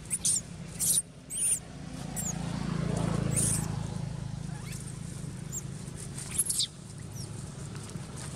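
Baby macaque giving short, high-pitched squeals again and again, distress cries as its mother refuses it milk. A low rumble swells and fades in the middle.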